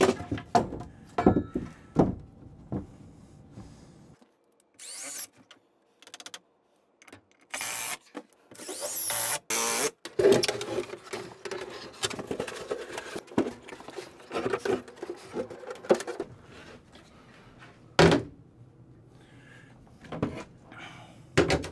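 Carpentry and installation sounds: knocks and handling of wood, then a power tool running for about two seconds, beginning roughly eight seconds in. Scraping and knocks follow as a bathtub is worked into place, with a sharp knock near the end.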